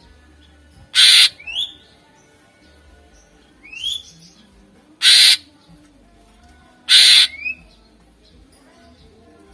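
Greater green leafbird (cucak ijo) singing: three loud, harsh rasping bursts, each about a third of a second long, with short upward-sweeping whistled notes after the first and third and another on its own about four seconds in.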